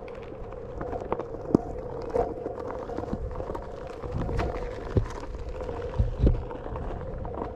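Onewheel GT electric board riding over a dirt trail: a steady hub-motor whine under the rumble of the tyre, with scattered clicks and knocks, and a few louder low thumps about five and six seconds in.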